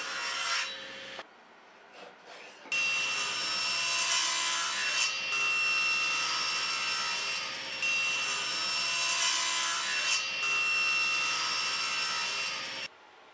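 Table saw running and cutting hardwood, with the blade note rising as stock feeds through. It cuts off briefly about a second in, then runs steadily through several cutting passes with short dips between them, and stops suddenly near the end.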